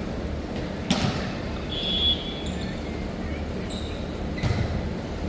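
Sharp knocks echoing in a large indoor hall, three of them, with a brief high squeak in between.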